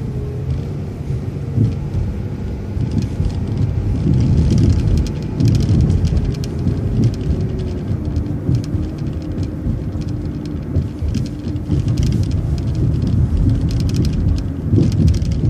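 City transit bus driving along the street, heard on board: engine and road noise with a steady whine that drops in pitch about eight seconds in, and frequent light rattles.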